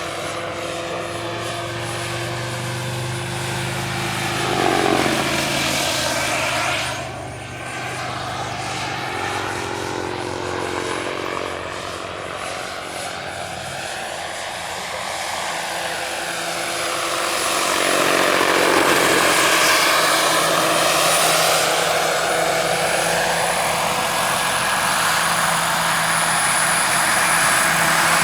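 Quarter-scale AS350 Ecureuil model helicopter with a Jakadofsky 5000 Pro turbine flying past: a steady high turbine whine over the rotor's low drone. It swells as it passes about five seconds in, then grows louder again from about seventeen seconds on.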